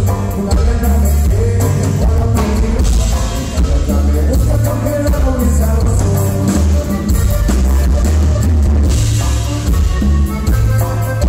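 Live Latin band playing, amplified through a PA: button accordion, bass guitar, congas and drum kit with singing, a steady, loud groove with a heavy bass line and regular drum hits.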